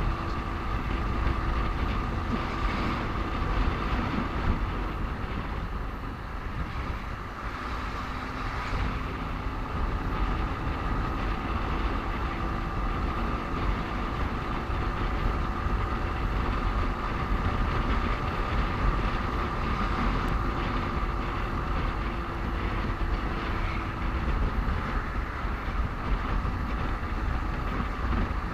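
Motorcycle running on the road in traffic, its engine drone steady under heavy wind rumble on the microphone.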